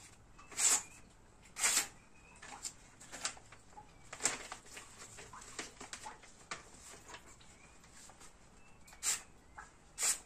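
Knife blade slicing through a sheet of paper in a sharpness test: short crisp rasps, the loudest about a second in and two seconds in, another near four seconds, and two more near the end. The blade is forged from a motorcycle brake disc.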